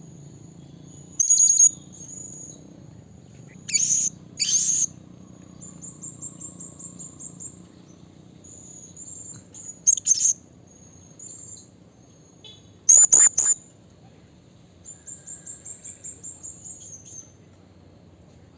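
Blue-crowned hanging parrot (serindit) calling with thin, very high-pitched shrill notes. Several loud, sharp call bursts are scattered through the sound, and there are two runs of rapid repeated chirps, one about six seconds in and one near the end.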